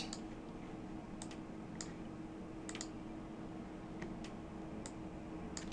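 Faint, scattered clicks of a computer mouse and keyboard, about eight spread irregularly over a few seconds, over a low steady electrical hum.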